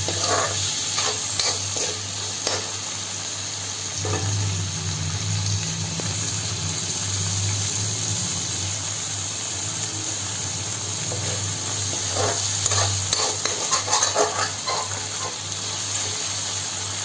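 Chopped tomato and onion sizzling in hot oil in a steel pan while a steel spoon stirs and scrapes against the pan. The scraping comes in the first couple of seconds and again more strongly about two-thirds of the way through.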